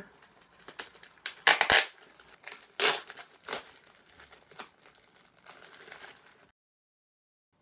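Clear plastic packaging bag crinkling and rustling in irregular handfuls as a cable is pulled out of it, with the sharpest crackles a second and a half and three seconds in. The sound cuts off abruptly about a second before the end.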